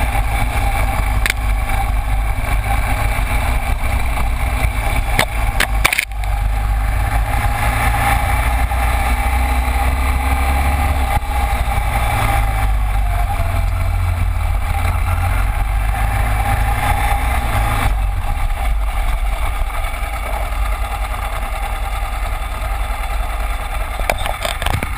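Cagiva Elefant 900's air-cooled V-twin engine running at low speed under way, heard from a camera mounted low by the front wheel. The sound cuts out briefly about six seconds in.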